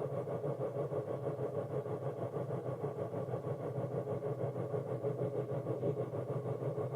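Steady low electronic drone with a fast fluttering pulse and no clear beat, from a synthesizer in a live electronic music set.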